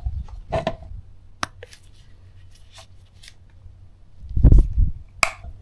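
Scattered clicks and knocks of things being handled on a workbench, with a heavier knock about four and a half seconds in and a sharp click near the end, over a steady low hum.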